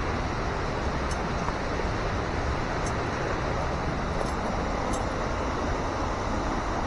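Steady rushing water, an even unbroken noise of a river or waterfall, with a few faint ticks over it.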